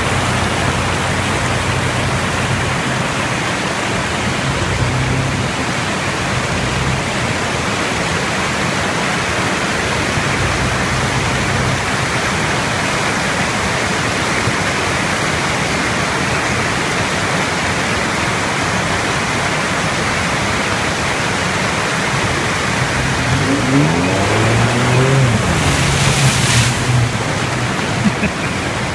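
Mountain creek rushing over rocks, a steady hiss of water. An SUV's engine hums under it early on, and near the end revs up and down as the SUV drives through the water, with a burst of splashing spray.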